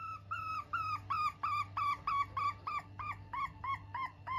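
Silkie hen calling in a steady string of short, repeated notes, about three or four a second, gradually dropping in pitch.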